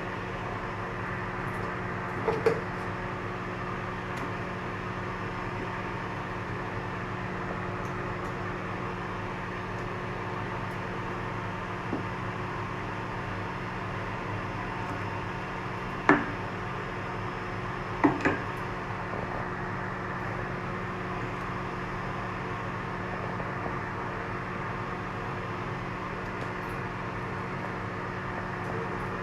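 A steady mechanical hum in a kitchen, broken by a few sharp clinks of a utensil or lid against a cooking pot. The loudest clinks come about two thirds of the way in, two seconds apart.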